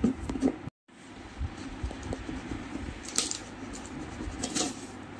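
A cardboard shipping box being handled and its packing tape scraped and slit with a box cutter: low rustling and scraping, with two sharper scrapes, one about three seconds in and one near the end.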